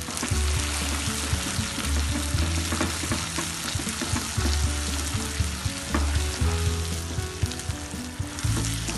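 Hot molten sugar caramel sizzling and bubbling after salted butter and chopped almonds and cashews go in, stirred with a silicone spatula in a nonstick pan: the butterscotch-crunch mixture foaming as the butter melts into the caramel.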